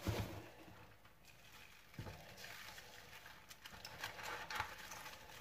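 Faint rustling and crinkling of napa cabbage leaves being handled in a plastic bowl as salt is rubbed between them, with a soft knock about two seconds in.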